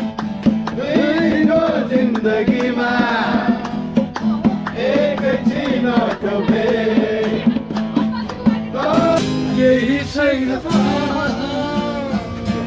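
Acoustic guitar strummed while men sing along.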